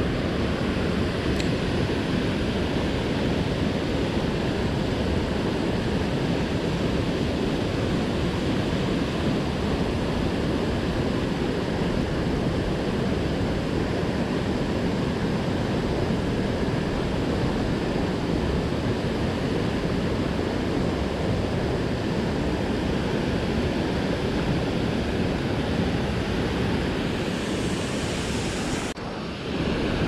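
Steady rushing water of a mountain stream, with a small waterfall pouring over a weir into the pool.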